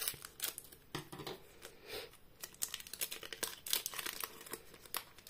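Foil wrapper of a Pokémon booster pack crinkling in the hands as it is torn open, a run of irregular sharp crackles.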